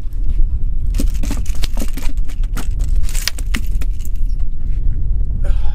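A fish flopping and slapping on a fiberglass boat deck after being swung aboard on a topwater lure: a run of clattering knocks lasting about two and a half seconds, over a steady low rumble.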